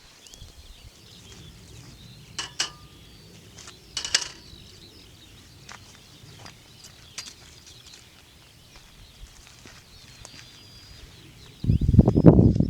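A few sharp clinks of camp cookware and utensils, with faint birdsong behind. Near the end a loud, low rustling rumble comes in and is the loudest sound.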